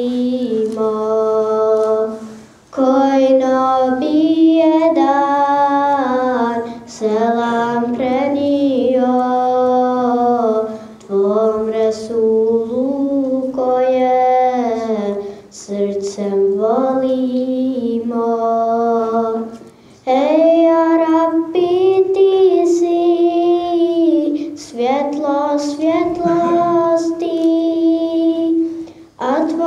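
A young female voice sings a kasida, an Islamic devotional song, solo and unaccompanied. It moves in long, drawn-out melodic phrases with vibrato, with brief pauses for breath between them.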